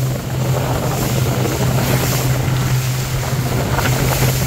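Small leisure motorboat's engine running steadily underway, a constant low hum, with wind on the microphone and water rushing past the hull.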